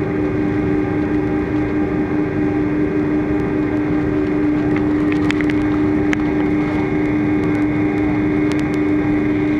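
Airbus A330-200's Pratt & Whitney PW4000 turbofan engines heard from inside the cabin as the aircraft rolls on the runway: a steady hum of unchanging pitch over a rushing noise. A few faint clicks come about halfway through and again near the end.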